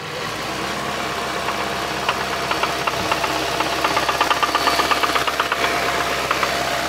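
2017 Hyundai Santa Fe engine running with a rapid, metallic knocking that sets in about a second and a half in and keeps on over the steady engine hum. The knock comes from inside the engine, which the owner takes for a valve or something similar banging against the cylinder head.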